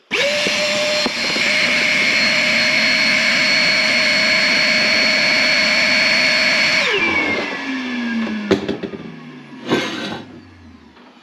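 Vacuum cleaner switched on, running with a steady whine, then switched off about seven seconds in, its motor pitch falling as it spins down. A couple of knocks follow near the end.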